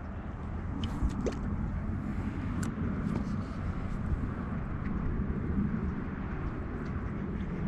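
Steady low outdoor rumble, with a few faint clicks and ticks over it.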